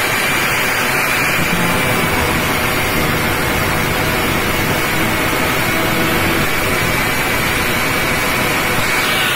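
Angle grinder running steadily with a high whine, its cut-off disc cutting through a threaded bolt.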